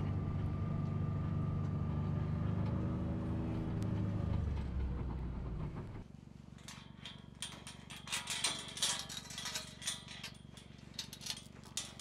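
Utility vehicle engine running steadily, heard from inside the cab, its pitch dipping and its level dropping about four to five seconds in as it slows. About six seconds in it gives way to irregular crunching footsteps on snow.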